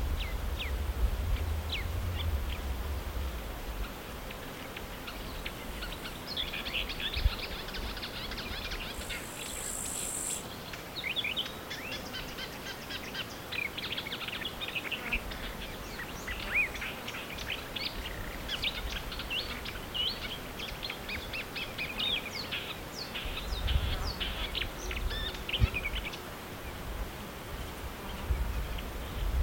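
Marsh warbler singing: a fast, varied, chattering song of rapid high notes, beginning a few seconds in and running on with short breaks.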